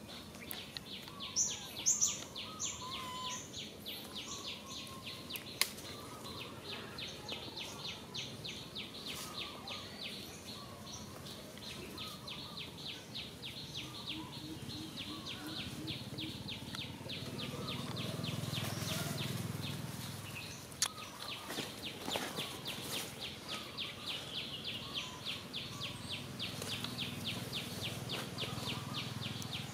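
A chorus of insects calling: a steady, fast, even pulsing, about seven pulses a second, that runs on without a break. A few short high chirps sound near the start, and a low rumble swells and fades about two-thirds of the way through.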